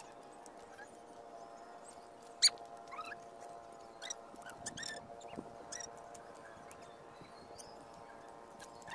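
Small stones and shells clicking and scraping as hands pick through them on a rocky shore, in scattered short ticks with a sharp click about two and a half seconds in, over a faint steady hum.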